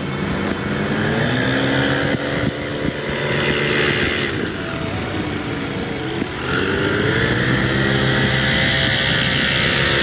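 A powered paraglider's (paramotor's) engine and propeller buzzing as it flies low overhead, its pitch sliding down and back up around the middle.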